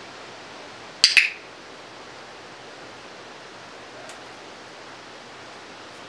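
A hand spray bottle misting a parrot: two quick spritzes about a second in, over a steady faint background hiss.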